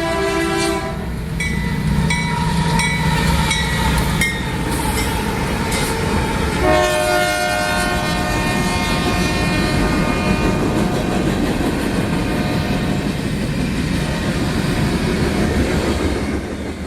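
A passing train's locomotive horn, fouled so that its chord sounds off, cuts off about a second in. Wheels clack over rail joints under a steady rumble, then the horn sounds again about seven seconds in and slowly fades.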